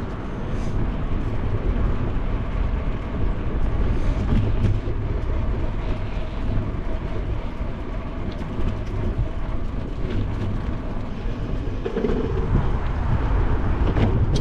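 Steady rumble of a bicycle rolling over tiled sidewalk paving, with a few light clicks and rattles.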